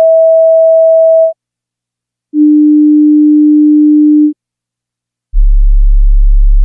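Three steady pure test tones, each about two seconds long with about a second of silence between, stepping down in pitch from a mid tone to a lower one to a very deep one. They are a playback check that headphones or speakers can reproduce the very low frequencies of heart sounds.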